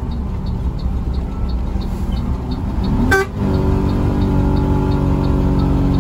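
Intercity bus engine and road noise heard inside the cabin. The engine climbs in pitch, then a short horn toot sounds about three seconds in, and the engine settles to a steadier, higher hum. A faint light ticking repeats about three times a second.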